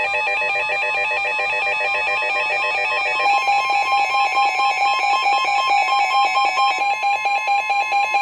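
NOAA Weather Radio emergency alert signalling. A rapidly warbling digital data burst (the SAME header that encodes the severe thunderstorm warning) ends about three seconds in, and the steady, piercing warning alarm tone of the weather radio follows.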